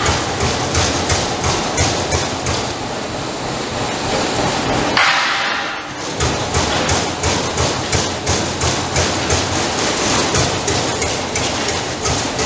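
Trumpf 200 Rotation CNC punch press punching sheet metal: a rapid, steady train of sharp punching strokes, with a brief hiss and pause about five seconds in.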